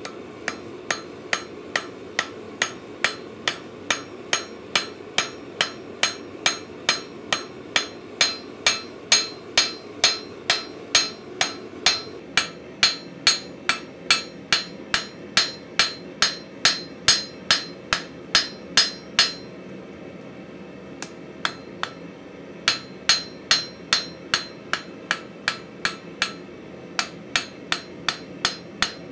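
Hand hammer striking a red-hot mild steel bar on an anvil: an even run of sharp blows, about three a second. The hammering stops for about three seconds around two-thirds of the way through, with only a couple of lone blows, then resumes in two more bursts.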